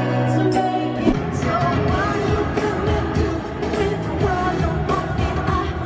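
Live pop concert music through a stadium PA, recorded on a phone: a woman sings over held keyboard chords, then about a second in a loud hit brings in the full band and drums with a steady beat.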